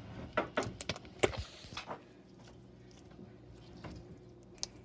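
Blue slime squeezed and kneaded by hand, giving a quick run of sticky pops and clicks as air pockets burst, mostly in the first two seconds, with one more faint click near the end.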